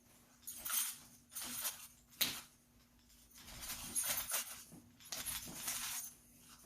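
Several short rustling, swishing noises from a person moving while demonstrating strikes, with a sharp click about two seconds in.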